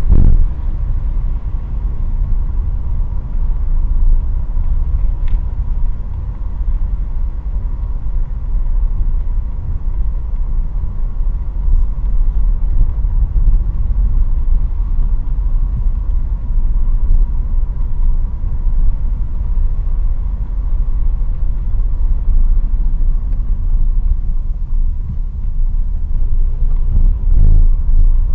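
A car driving, heard from inside the cabin: a steady low rumble of road and engine noise, with a faint steady hum above it.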